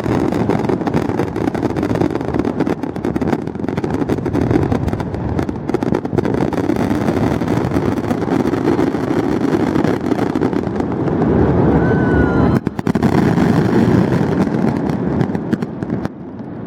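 Fireworks display: a continuous dense crackling and rumbling of shell bursts, with a brief rising whistle about twelve seconds in.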